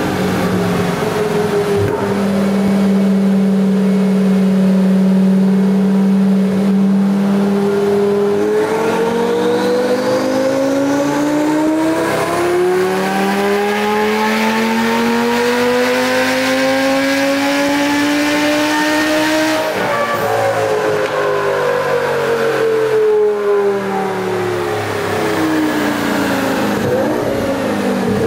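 2004 Lamborghini Gallardo's V10, fitted with a Heffner twin-turbo kit, under a dyno pull: held at steady revs for about eight seconds, then rising through a long sweep of revs for about eleven seconds. Then the throttle closes and the revs wind down.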